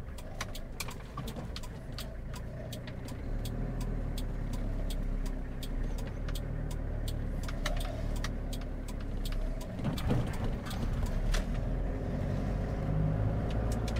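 Toyota Toyoace cab-over truck's engine running as it pulls away and picks up speed, heard from inside the cab. A turn signal relay clicks about three times a second through most of it and stops a few seconds before the end.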